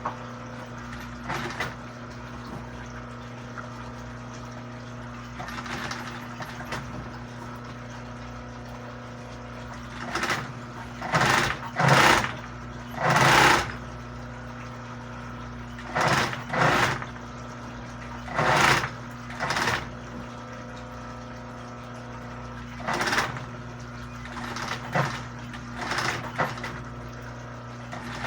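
Sewing machine stitching in short runs, each about half a second to a second long, a dozen or so of them, mostly in the second half, over a steady electrical hum.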